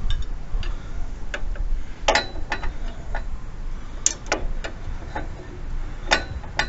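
Irregular sharp metallic clicks and clinks, about a dozen, some with a short ring, as tools and steel brake-pedal parts are handled, over a low steady rumble.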